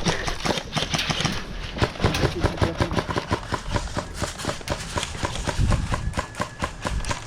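Quick, irregular footfalls of a person running, with gear clattering and knocking in time with the steps.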